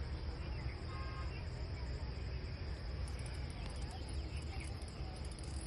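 Insects such as crickets keep up a steady high-pitched drone with fast, pulsing chirps above it, over a low rumble.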